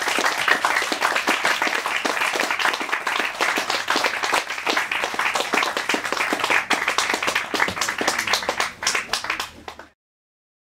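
Audience applauding at the end of a performance, a dense patter of hand claps. The clapping thins to scattered claps near the end, then cuts off abruptly.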